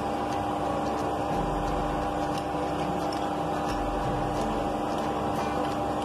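A steady mechanical hum, with faint light scraping and ticks of a spoon working ground chutney paste out of a plastic mixer jar into a glass bowl.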